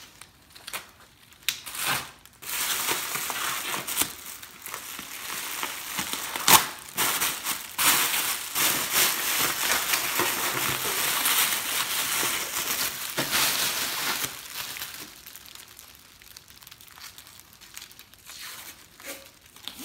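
Blizzard Blanket survival wrap crinkling as gloved hands press and tape it down, with a few sharp crackles at first and a dense run of crinkling from about two seconds in; after about fifteen seconds only faint scattered rustles remain.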